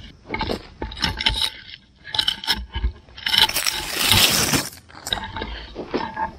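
Footsteps and rustling handling noise as someone walks through the crop rows, with a longer, louder rustle around the middle.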